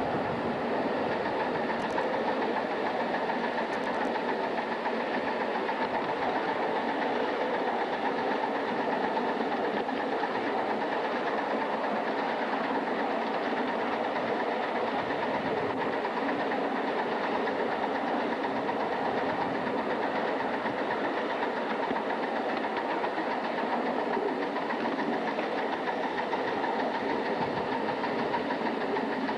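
Live steam Atlantic-type locomotive under steam, giving a steady rushing hiss with no break or change in level.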